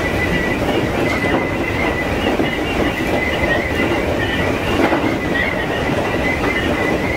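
E231-0 series electric commuter train running at speed, heard from inside its leading car: a steady rumble of wheels on rail with a thin, slightly wavering high whine over it and a few faint knocks from the track.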